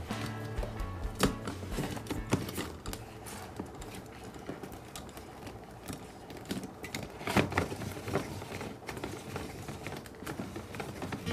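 Irregular hard plastic clicks and taps from handling an orange-shaped toy juice dispenser as its top cap and press are fitted and pushed down, with a denser run of clicks about seven to eight seconds in.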